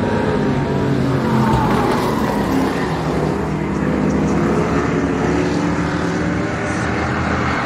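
Pack of street stock race cars at speed on a short oval, several engines running together and overlapping, loudest as the pack passes about a second and a half in.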